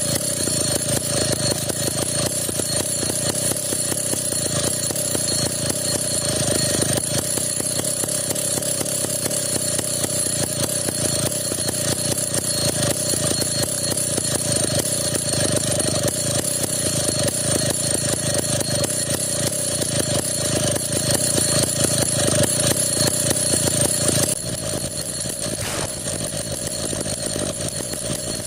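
Stihl 070 two-stroke chainsaw running steadily at high revs, cutting into a coconut palm trunk. Its sound drops a little in level about 24 seconds in.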